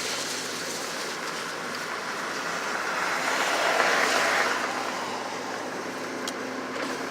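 Car driving on a road: steady road and tyre noise that swells to a louder rush about four seconds in, then eases back.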